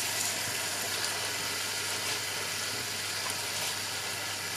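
Steady soft sizzling of onion, pumpkin and apple in hot oil in a stainless steel pan, with a few faint ticks as raw marinated chicken wings are laid on top.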